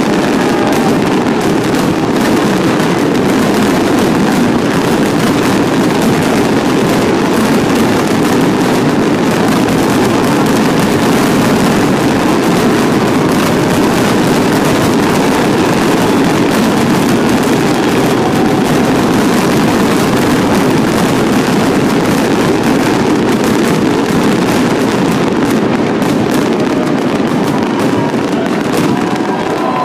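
Fireworks finale: a dense, unbroken barrage of bursts and crackling at a steady high level, with a crowd starting to cheer at the very end.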